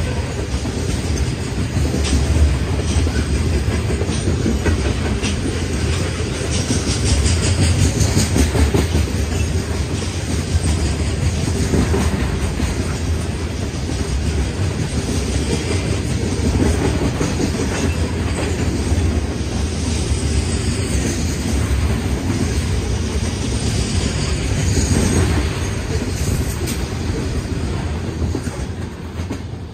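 Covered hopper cars of a freight train rolling past close by: a steady rumble of steel wheels on rail with a continuous clickety-clack over the rail joints, fading over the last few seconds as the final cars go by.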